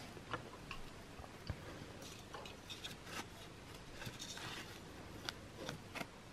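Faint rustles and light clicks of a hand rummaging through a metal tin of bath bombs and paper-wrapped packages, a few small knocks each second.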